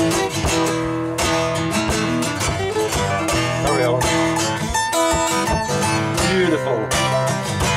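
Two acoustic guitars being strummed and picked together in a steady rhythm.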